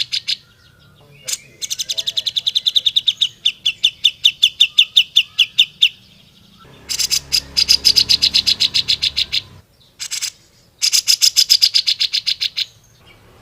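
Cucak jenggot (grey-cheeked bulbul) singing in loud, fast rattling trills of sharp repeated notes, several bouts in a row. The longest dips slightly in pitch partway through.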